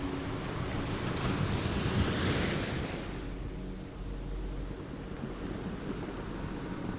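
Ocean surf: a wave builds about a second in, breaks with a rushing hiss that peaks around two seconds, then falls away to a quieter wash.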